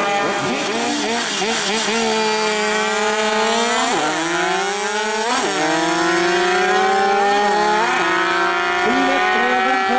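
Two racing two-stroke moped engines held at high revs, then accelerating hard down a drag strip. The engine note drops sharply and climbs again at each gear change, about four, five and a half and eight seconds in.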